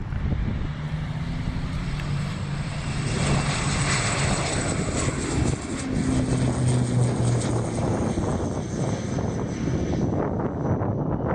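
Turboprop aircraft engines running, with a steady propeller drone and a high turbine whine that drops slightly near the end, over wind buffeting the microphone.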